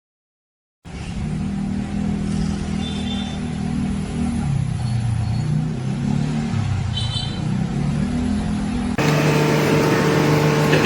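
An engine running, its pitch drifting up and down, then a cut about nine seconds in to another steady engine sound with a fixed pitch.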